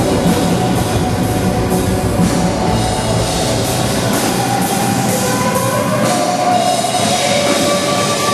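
Live rock band at a soundcheck: drum kit and distorted guitars playing loud and steady, with held notes coming in over the last few seconds.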